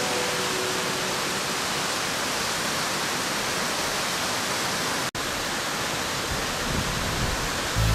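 Waterfall's steady rush of falling water, even across low and high pitches, broken off for an instant about five seconds in.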